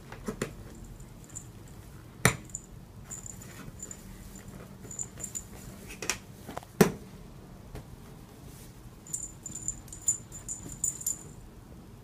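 A puppy playing with a ball: a light metallic jingle comes and goes, likely from the tags on its collar, with several sharp knocks as the ball and puppy bump about. The loudest knocks fall about two seconds in and near seven seconds, and the jingling thickens toward the end.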